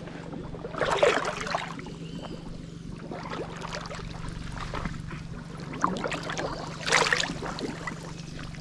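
Water splashing as someone wades, with two short splashes, one about a second in and one near the end, over a steady low hum.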